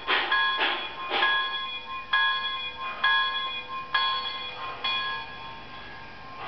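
Model steam locomotive's sound-decoder bell ringing through its small onboard speaker. The strikes come about twice a second at first, then slow to about one a second and die out near the end.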